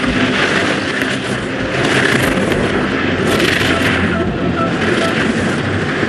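A downhill racer's skis scraping and chattering over hard, icy snow at speed: a loud, steady, rasping hiss that swells and eases with his turns.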